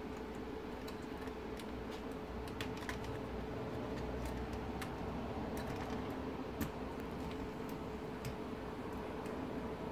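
Small, irregular clicks and scrapes of a metal pick tool prying at the plastic lugs of a gauge pointer motor on an instrument-cluster circuit board, over a steady hum.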